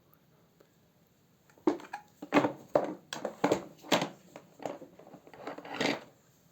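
A run of about ten sharp clicks and knocks of hard objects being handled, starting about two seconds in and stopping near the end. There is no motor running.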